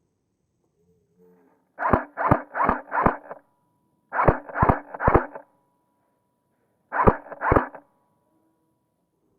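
Airsoft gun firing single shots in quick strings: four shots, a pause, three more, then two more near the end, about three shots a second within each string.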